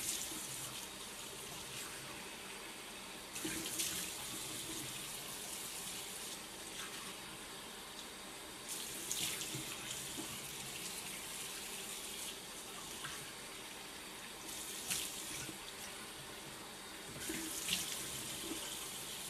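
Bathroom tap running steadily into a sink, with louder splashing every few seconds as water is scooped up and rinsed over a face to wash off a cleansing mask.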